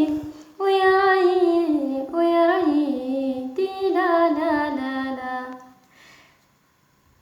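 A female voice singing unaccompanied, drawing out a wordless phrase of held notes that slide up and down, breaking briefly between them. It dies away about five and a half seconds in.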